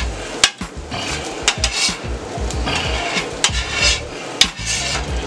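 Two metal spatulas scraping and chopping fried rice across a steel flat-top griddle: repeated rasping scrapes of steel on steel, with several sharp metal clanks.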